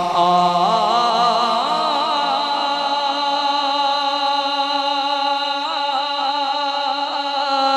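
A man singing a naat into a microphone, holding a long drawn-out line whose pitch waves up and down without a break.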